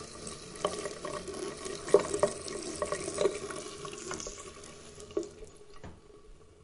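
Water running and splashing, with many small splashes throughout, growing quieter over the last couple of seconds.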